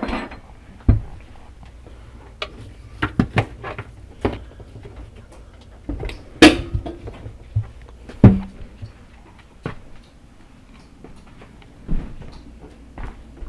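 Irregular clicks and knocks of hands handling the dishwasher and its power plug, with two louder clunks a little past the middle.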